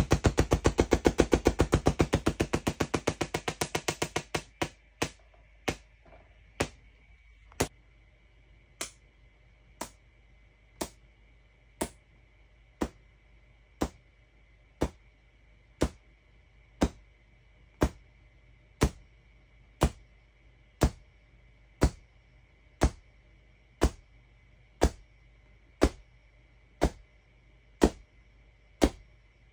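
QCW Tesla coil sparking: a rapid run of sharp arc cracks for about the first four seconds, then single cracks about once a second over a faint steady hum.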